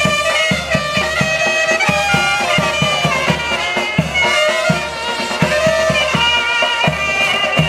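Instrumental Mexican band music: wind instruments hold the melody in sustained notes over a steady, quick drum beat.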